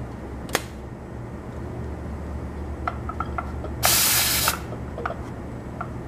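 A short, loud hiss of refrigerant gas lasting under a second, about four seconds in, as the charging hose and can tap are switched to a new refrigerant can, amid small metallic clicks and ticks from handling the fittings.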